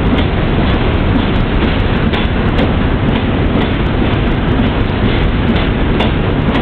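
NYC Subway work train of retired R17, R21 and R22 cars converted to carry continuous welded rail, rolling past close by. Steel wheels on rail make a loud, steady rumble, with frequent irregular clacks and clicks.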